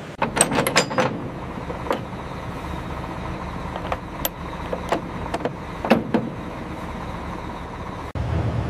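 A vehicle engine running steadily, with a run of sharp metallic clanks and knocks in the first second and single knocks every second or two after. Near the end the sound drops out for an instant and a deeper hum follows.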